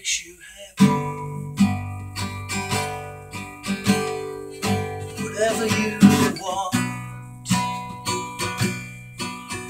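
Acoustic guitar strummed, chords in a steady rhythm of strokes. After a brief lull at the start, the strumming comes in just under a second in.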